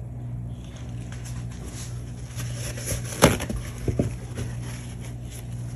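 Light clicks and knocks of handling on a craft table as a bubble-popping pin is put down and a resin cup is picked up, the sharpest knock about three seconds in, over a steady low hum.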